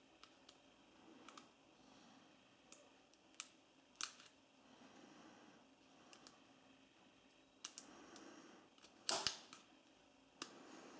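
Small plastic clicks and scrapes as fingers handle an LG F60 smartphone's open back and push a SIM card into its slot. The clicks are scattered and faint, with a sharper double click about nine seconds in.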